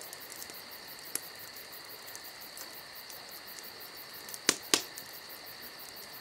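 Insects trilling steadily in the night, with a couple of sharp pops from the bonfire's glowing embers about four and a half seconds in.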